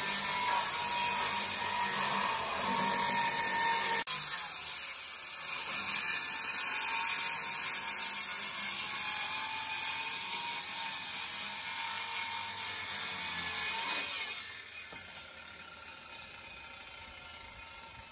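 Handheld electric circular saw running and cutting through a thick hardwood slab, a steady high whine over the noise of the blade in the wood. About fourteen seconds in the cutting stops and the sound drops sharply to a quieter background.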